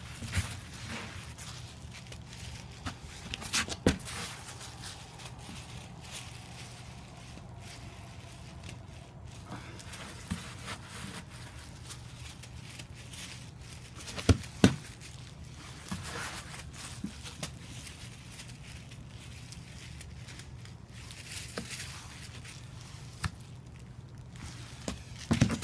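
Hands packing and shaping wet snow: soft crunches, squishes and scrapes come and go, with a few sharper clicks about 4 s in and twice around the middle. A steady low hum runs underneath.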